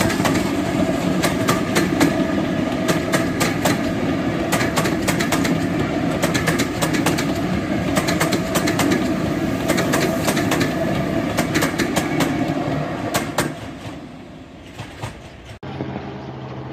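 Steam-hauled passenger coaches rolling past at close range: a steady rumble with rapid sharp clicks of the wheels over the rail joints. It fades from about 13 seconds in as the train moves away, and gives way suddenly to a quieter scene near the end.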